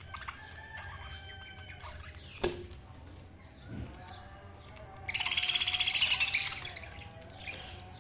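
Budgerigars chirping and whistling in short calls, with a single sharp click about two and a half seconds in. About five seconds in, one bird breaks into a loud, rapid, grating chatter lasting about a second and a half.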